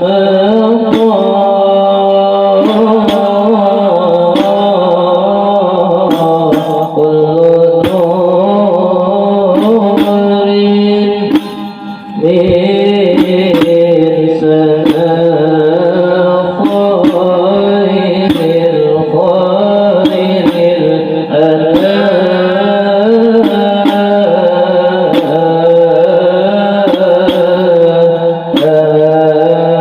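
A group singing an Arabic maulid poem in unison, a continuous melodic chant, with hand drums striking along in a steady beat. The singing drops away briefly near the middle.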